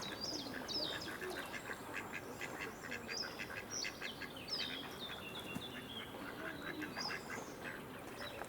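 Mallard ducks calling on the water: a run of short, quick quacks, mixed with many high, downward-sliding peeping calls.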